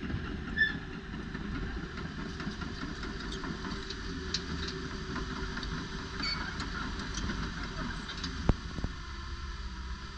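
Komatsu PC180LC-7 crawler excavator running steadily as its hydraulic boom, arm and bucket move, with scattered short high squeaks and a sharp knock about eight seconds in.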